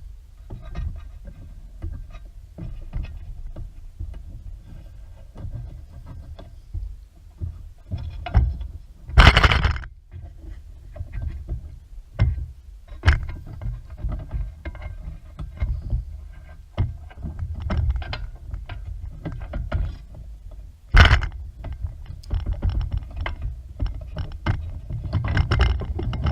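Hands and a wooden tool working a rubber band saw tire onto a band saw wheel: scattered knocks, scrapes and rubbing, with two louder thumps about nine and twenty-one seconds in.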